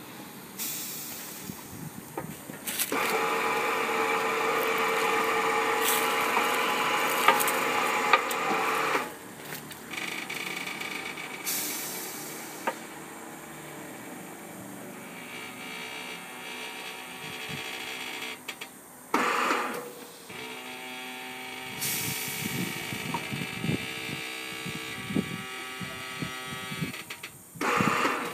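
A machine motor runs with a steady whine for about six seconds and then stops. Scattered knocks and short hissing bursts follow.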